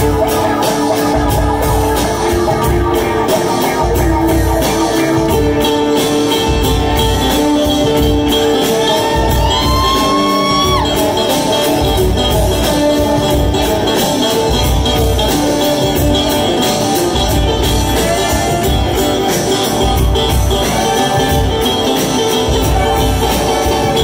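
Live bluegrass band playing an instrumental passage: banjo picking, a bowed fiddle and acoustic guitar. About ten seconds in, one high note slides up and then drops sharply.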